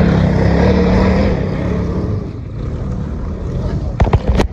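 Snowmobile engine running hard as the sled works through deep, soft snow. It is loud for about the first two seconds, then drops away. A few sharp knocks come near the end.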